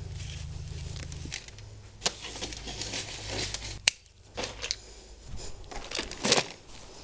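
Hands handling soil, plastic and irrigation parts, with irregular rustling and crinkling. Just before four seconds there is one sharp snip as quarter-inch black drip tubing is cut.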